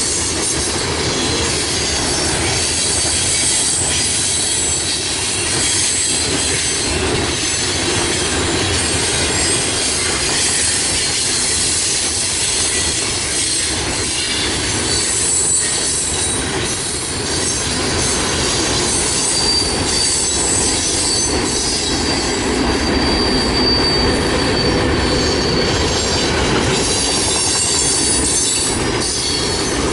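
Freight cars of a passing train (covered hoppers, a tank car, a boxcar) rolling by: the steady noise of steel wheels on the rails, with a thin, high wheel squeal in the second half.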